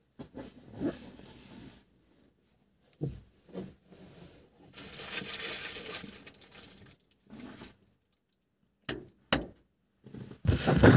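Close handling noise: rustling and scraping of something rubbed and moved right against the microphone, broken by low knocks, with two sharp clicks and a burst of knocking and rustling near the end.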